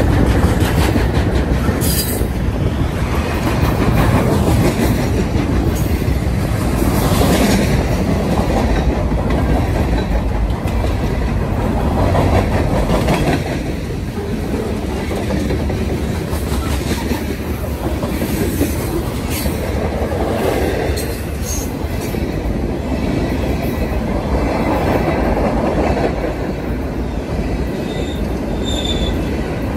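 Freight cars rolling past close by: a steady, loud wheel-on-rail rumble that swells and fades as each car goes by, with clacking over rail joints and a brief high wheel squeal near the end.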